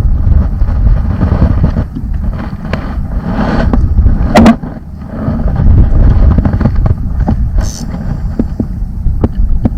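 Wind buffeting the microphone as a loud, uneven low rumble, with a few sharp knocks, one louder about halfway through.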